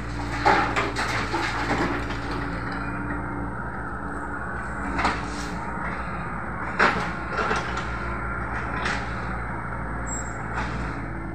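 Mini excavator's diesel engine running steadily, with scattered clanks and knocks from the bucket: a cluster as it tips a load into the steel dump-truck bed near the start, then single sharp knocks as it swings back and digs, the loudest about five and seven seconds in.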